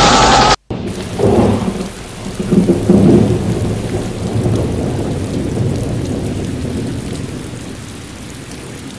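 Music cuts off about half a second in. Then a roll of thunder rumbles over steady rain, loudest between one and three seconds in and slowly dying away.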